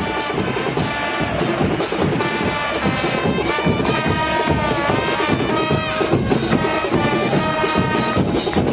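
Background music: a melody of held notes that bend in pitch, over a busy beat.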